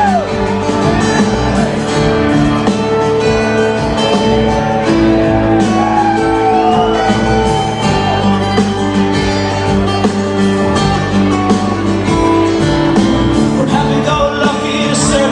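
Live rock band playing an instrumental passage, with guitar lines over held band chords.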